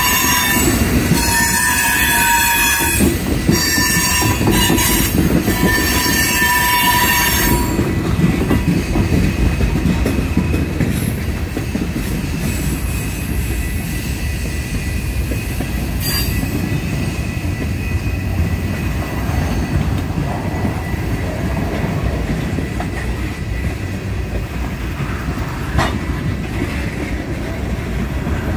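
CN train passing on the track: a series of loud, high-pitched tones in several pieces with short gaps over the first seven seconds or so, then a steady rumble of wheels on rail for the rest.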